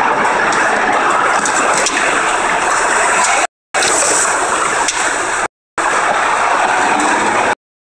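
Loud, steady rushing of wind and road noise from the Honda Accord on the move, with no clear engine note above it. The sound cuts out completely for a moment three times.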